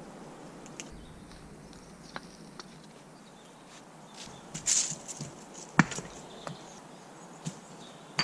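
Footsteps and handling noises on a woodland floor: scattered light steps and rustles, a brief hiss about halfway through, and one sharp knock just before six seconds in.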